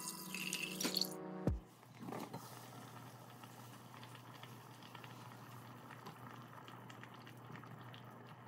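Water poured from a glass jug into a pot at the start, under music that stops about a second and a half in with a quick falling sweep. After that, hot water steaming in a granite-coated pot on the hob: a faint steady hiss with light ticks and a low hum underneath.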